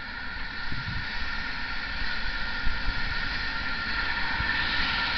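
A locomotive running near the camera: a steady mechanical hiss and hum that grows gradually louder.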